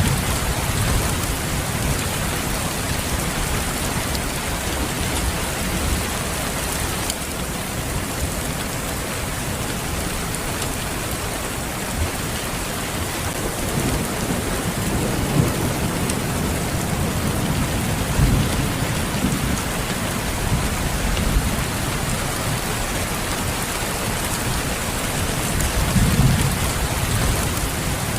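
Steady heavy rain falling, with low rumbles of distant thunder swelling a few times, around the middle and again near the end.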